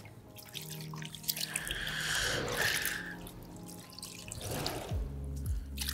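Foam polishing pad being squeezed and worked in a bucket of water: wet squishing and sloshing, one long squeeze in the first half and a shorter one near the end.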